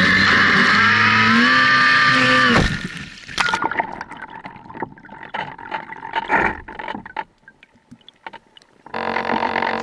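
Electric motor of an RC foam seaplane running on the water, its whine rising in pitch about a second in, then cutting off abruptly. Irregular splashing and gurgling of water with clicks follow as the model sits in the water. Music comes in near the end.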